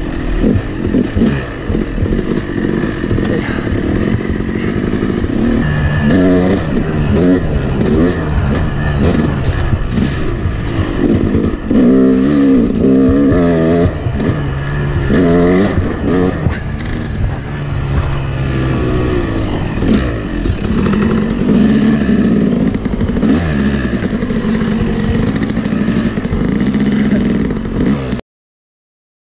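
Yamaha YZ250X two-stroke dirt bike engine, revving up and backing off again and again under hard riding, with clatter from the bike. The sound cuts off suddenly just before the end.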